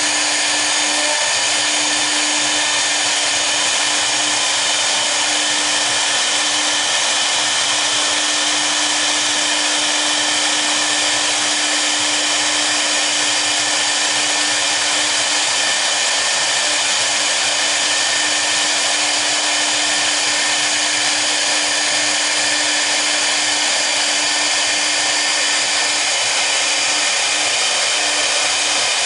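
Two high-speed spindles of a 1325 double-spindle CNC router running steadily while their V-bits engrave a board. It is a constant, even whine and cutting hiss with a steady low tone underneath.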